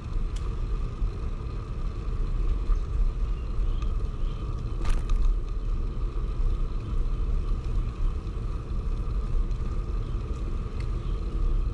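Wind buffeting the microphone of a camera riding on a moving bicycle, with a low rumble from the tyres on the path. A single sharp click comes about five seconds in.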